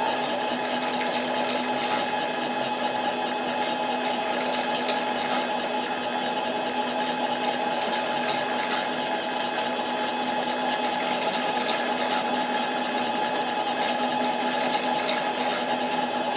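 Harbor Freight 7x10 mini lathe running steadily at slow speed, its motor and gearing giving a steady hum with a whine above it, while the tool takes a light cut on a Husqvarna 372 chainsaw cylinder with a faint irregular scratching.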